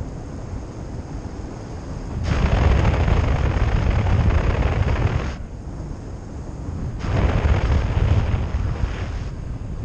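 Wind rushing over a camera microphone in paraglider flight, swelling into two louder gusts, one about two seconds in lasting about three seconds, another about seven seconds in.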